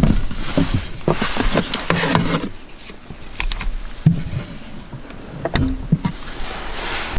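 A small hinged wooden cabinet door being opened and closed, with sharp clicks and knocks from the door and its catch, and rustling as things inside the cupboard are handled.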